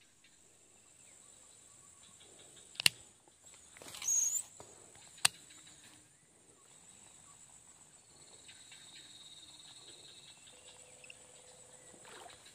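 Quiet swamp ambience: a faint, steady, high-pitched insect drone, broken by two sharp clicks about two and a half seconds apart and a short rustle between them.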